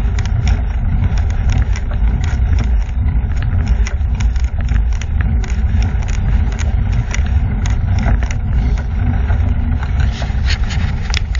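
Heavy wind buffeting on the microphone of a camera moving along a road: a loud, steady, low rumble with frequent small clicks and rattles.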